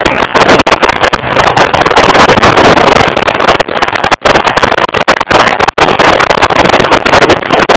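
Loud wind buffeting on a motorcycle-mounted camera's microphone at road speed, with the bike's engine running underneath. The rumble cuts out for an instant several times.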